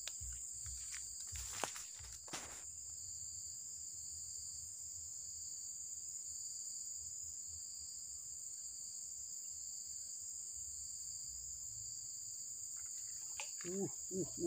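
Steady high-pitched insect chorus, holding two even tones without a break. Two short clicks come about two seconds in.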